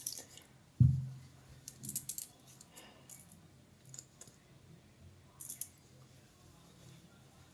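Small clicks and rattles of makeup packaging being handled close by: a compact and a liquid concealer tube with its cap and applicator. There is one dull knock about a second in, and short clicks scattered through the rest.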